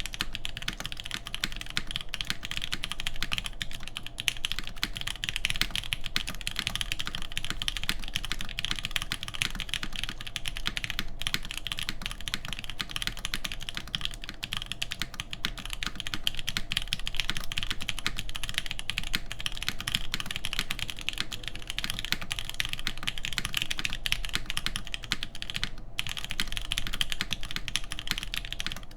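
Continuous fast typing on a custom mechanical keyboard: lubed 43studio Popu switches with 65g springs in an aluminum full plate, under GMK keycaps. It has brief pauses about 11 and 26 seconds in.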